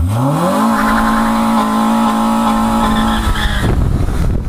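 A car engine revving up quickly and held at steady high revs for about three seconds, then dropping away into rough noise near the end.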